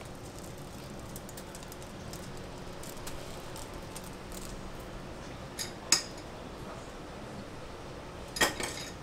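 Light ticking as small chocolate cereal rings drop onto egg waffle batter in the iron, over a steady kitchen hum, then sharp metallic clinks about six seconds in and a louder cluster of clinks near the end.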